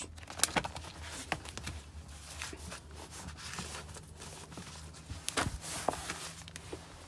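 Paper being handled: pages of a ring-bound instruction manual and loose documents leafed through and shifted about, giving scattered light rustles and taps over a faint low hum.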